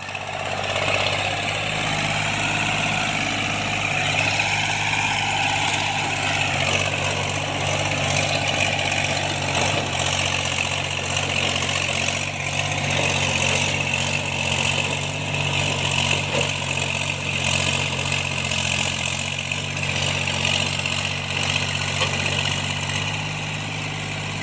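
Tractor engine running steadily at an even speed, its knocking repaired.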